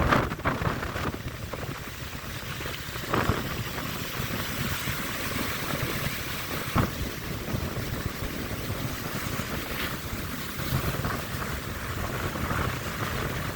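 Wind gusting on the microphone over the steady wash of surf, with a couple of brief knocks.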